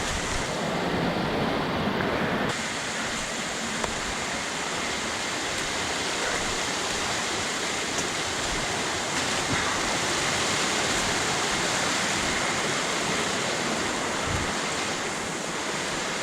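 Small waterfall on a gorge side-creek running: a steady rush of falling water.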